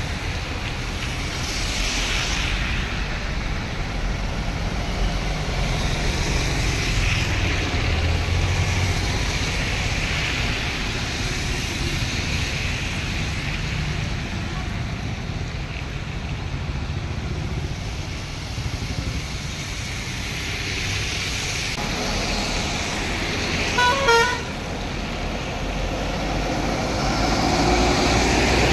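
Road traffic moving slowly through a flooded street: engines rumbling and tyres swishing through standing water. A vehicle horn gives two quick beeps a little after three quarters of the way through.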